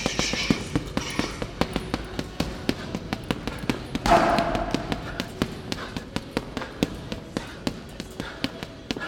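Boxing gloves striking a tall leather heavy bag in quick combinations, about three to four punches a second, the blows loudest in the first half. A short vocal sound, like a grunt, comes about four seconds in.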